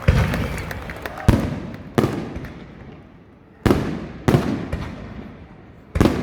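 Fireworks going off: about six loud shell bursts at irregular intervals, each bang dying away in a long echoing tail, with a lull of over a second in the middle.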